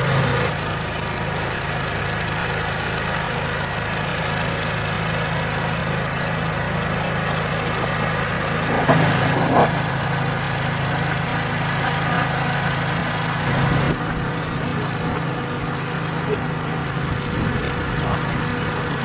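A fishing skiff's motor running steadily. Two short, sharp sounds stand out about nine seconds in.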